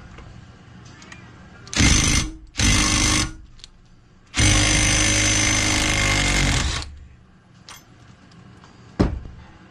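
Pneumatic impact wrench hammering in three bursts, two short ones and then one of about two and a half seconds, working a nut on a Harley-Davidson panhead flywheel assembly as it is taken apart. A single sharp knock follows near the end.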